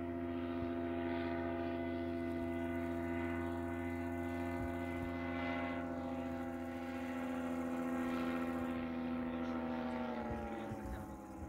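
Paramotor trike's engine and propeller droning steadily at one pitch, then throttling back about ten seconds in, the pitch sliding down and the sound fading.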